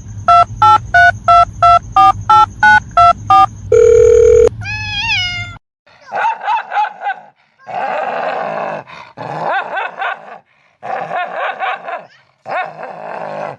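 A quick run of about a dozen electronic beeps at two alternating pitches, like a phone's tones, ending on a longer tone. Then, from about halfway in, a dog vocalizing in five wavering, pitched bouts.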